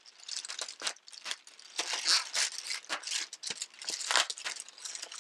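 Irregular crinkling and crackling as chocolates from an advent calendar are opened and unwrapped by hand.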